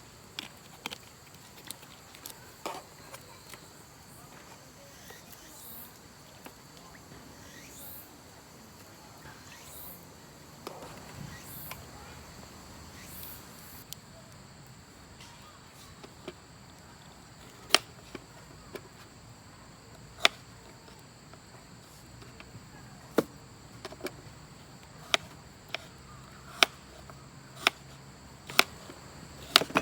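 Insects chirring steadily in the background, with a series of sharp knocks about one to three seconds apart through the second half; these knocks are the loudest sounds.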